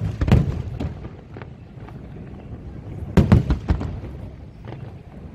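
Aerial firework shells bursting in sharp bangs: a cluster right at the start, a few lighter pops over the next second, and another cluster of bangs about three seconds in.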